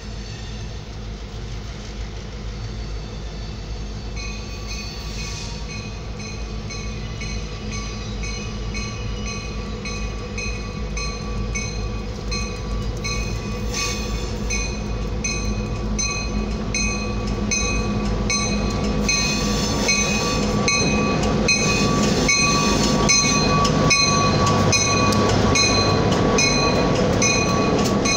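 Union Pacific diesel locomotive approaching slowly, its engine rumble growing steadily louder, with its bell ringing about twice a second from about four seconds in. Near the end, as it draws alongside, the wheels click over the rail joints.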